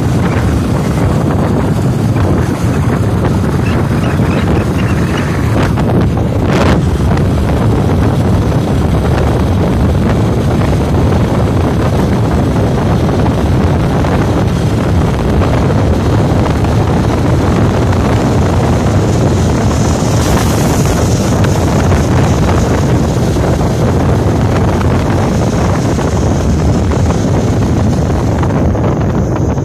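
Steady wind rush buffeting the microphone of a moving motorbike, with the bike's engine running underneath.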